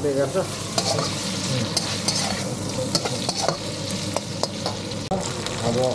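Food frying and sizzling in a pan, steadily, while it is stirred. A spatula scrapes and knocks against the pan now and then, giving sharp clicks.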